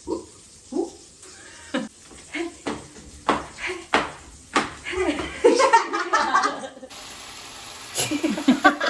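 Short bursts of voices, talking and laughing, broken up by a few sharp knocks.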